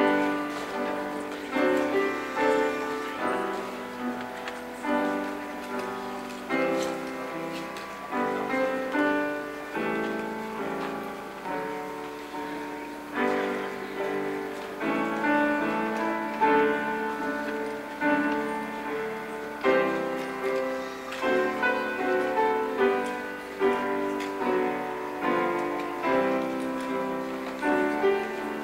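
Piano playing a slow, steady piece, its notes struck and fading one after another.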